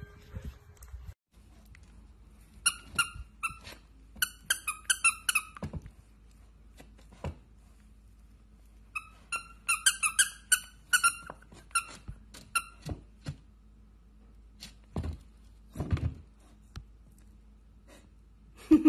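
A dog's squeaky toy squeaks in two runs of quick short squeaks as a Samoyed puppy chews it, followed by a few dull knocks of the toys against the floor.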